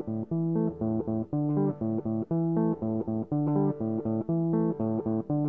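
Music: an instrumental guitar intro of quick, evenly picked notes over a bass line.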